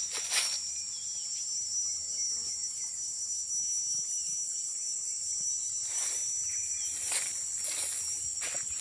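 Insects buzzing in a steady, high-pitched chorus, with a few short rustling sounds in the last three seconds.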